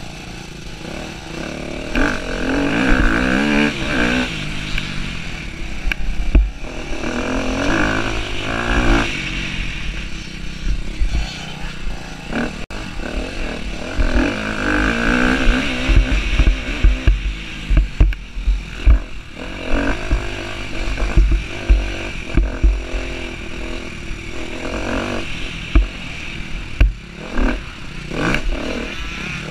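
Husqvarna TC250R motocross bike's engine revving up and falling back again and again as it is ridden hard around a dirt track. Short thuds from the bumps come through, more of them in the second half, over a steady rush of wind on the microphone.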